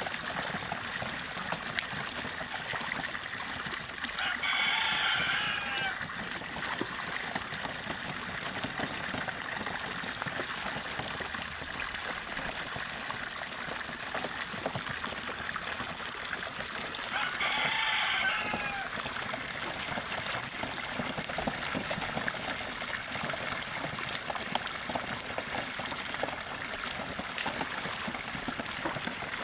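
Steady trickling and splashing of running water. Two short pitched calls rise over it, one about five seconds in and another at about eighteen seconds.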